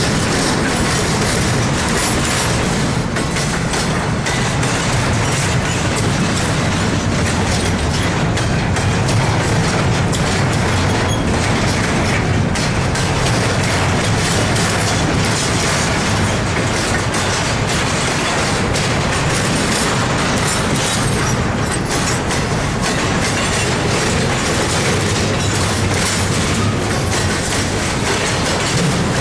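Double-stack intermodal well cars of a freight train rolling past: a steady rumble of steel wheels on rail with irregular clicks over the rail joints.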